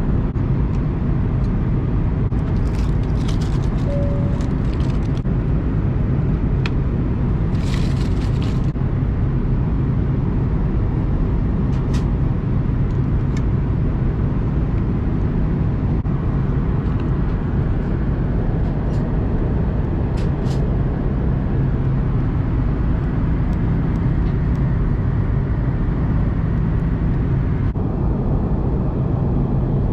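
Steady cabin roar of an Airbus A330-200 in flight, engine and airflow noise heard from a passenger seat. A few faint rustles and clicks early on, and a brief faint beep about four seconds in.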